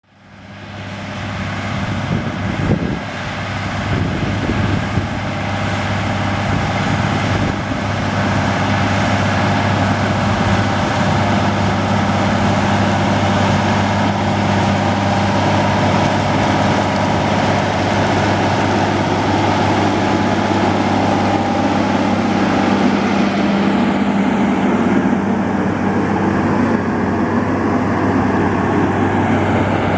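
Case IH Steiger 500 Quadtrac's 12.9-litre diesel engine running steadily under load while pulling a five-furrow plough, with a steady low hum. The sound rises over the first few seconds.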